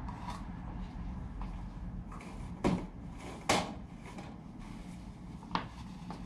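Three sharp knocks from fork parts or tools being handled on a workbench during disassembly of a suspension fork, the second about a second in from the middle being the loudest, over a steady low hum.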